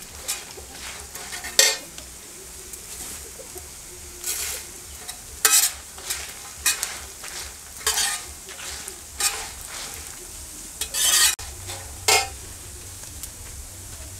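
Metal spatula scraping and stirring dried red chillies and coriander seeds around a wide kadai as they roast in a little oil, with a light sizzle underneath. The scrapes come irregularly, the longest and loudest about eleven seconds in.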